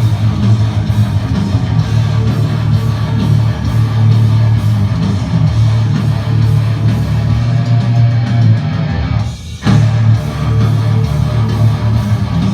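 Loud heavy metal music with distorted electric guitar, breaking off briefly about nine and a half seconds in.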